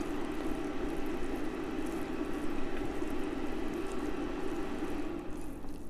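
Cooked noodles being stirred and mixed with sauce in a pot: a steady wet squishing and scraping that fades near the end.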